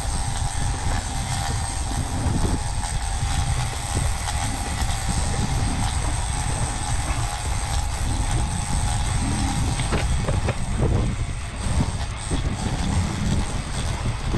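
Boat's outboard motor running steadily under a heavy low rumble and hiss of the boat moving on open water, with a few knocks about ten seconds in.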